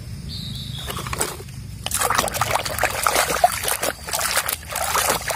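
A hand sloshing and splashing in a plastic basin of muddy water, getting busier about two seconds in.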